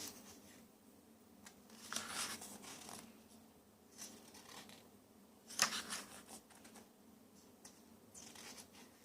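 Paper rustling in several short swishes, the loudest a little over halfway through, as the pages of a photo essay book are handled and turned.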